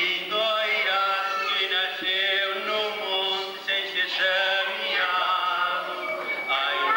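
A man singing a song, his voice moving through held notes.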